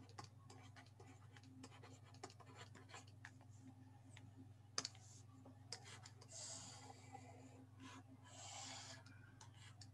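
Faint stylus writing on a tablet screen: scattered light taps and scratches, a sharper tap about five seconds in, and two longer scratching strokes later as lines are drawn. A low steady hum lies underneath.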